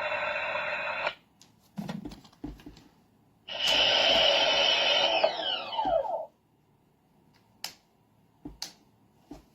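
Electronic sound effects from a toy busy board's small speaker: one sound cuts off about a second in, and a second, longer sound starts a few seconds later and ends in a falling glide. Clicks from its switches and buttons come between and after the two sounds.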